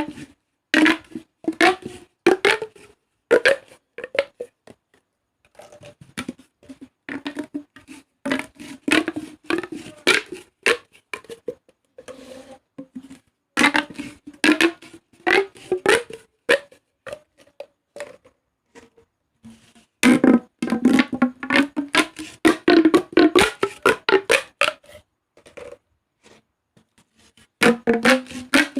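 Pop tubes, ribbed plastic fidget tubes, being stretched and squashed: bursts of rapid crunchy clicking from the ribs, with a low tone running through them, broken by short pauses.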